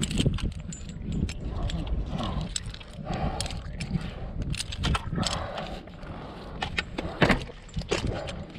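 Irregular clinks and jangles of metal climbing and rigging hardware being handled, with a steady low rumble of wind on the microphone.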